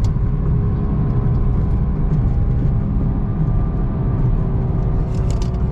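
A car's engine and road noise heard from inside the moving car: a steady low rumble with a faint even engine hum, and a few light clicks near the end.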